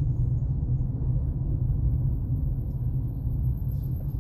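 Steady low rumble of a Hyundai HB20 being driven, engine and road noise heard inside the car's cabin.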